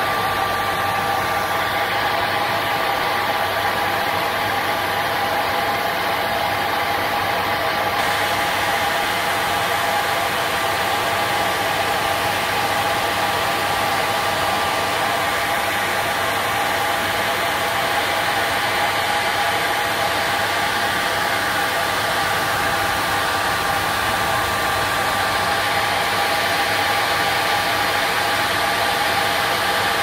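Hand-held hot-air blower running steadily, a constant motor whine over rushing air. It is being used to heat-test a combined CO and heat fire detector until it goes into alarm.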